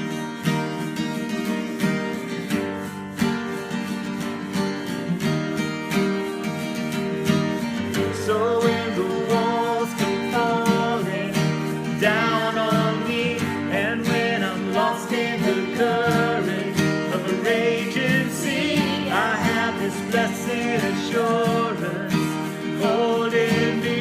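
Live band music with strummed acoustic guitar over sustained chords; a voice sings the melody from about eight seconds in.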